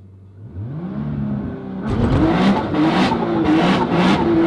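Nissan GT-R's twin-turbo V6 revving up from idle, rising in pitch from about half a second in, jumping much louder about two seconds in and then holding high revs with a slightly wavering note: the engine being brought up to launch-control rpm before a standing launch.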